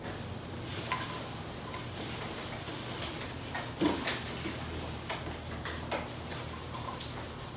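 Rustling and a handful of sharp clicks and taps from handling ornaments and their packaging while decorating a small artificial Christmas tree, over a steady low hum.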